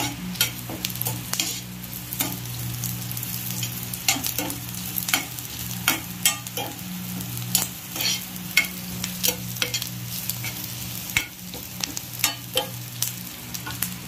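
Onions, dals, dried red chillies and curry leaves sizzling in hot oil in a black iron kadai. A slotted steel spatula stirs them, scraping and clinking against the pan every second or so over a steady low hum.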